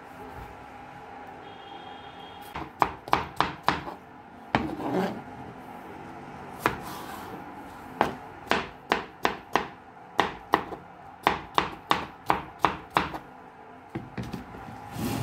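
Kitchen knife chopping peeled cucumber into cubes on a cutting board: sharp strikes of the blade through the cucumber onto the board, a run of about five some three seconds in, then a longer run of a dozen or so at about three a second. A faint steady hum sits underneath.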